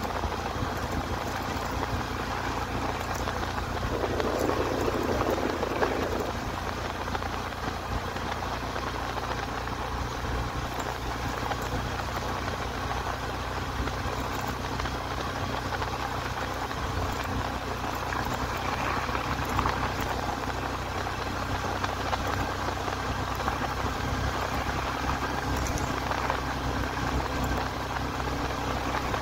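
Small commuter motorcycle running at a steady cruising speed, its engine a constant low hum under the rush of wind and road noise, with a brief louder rush about four seconds in.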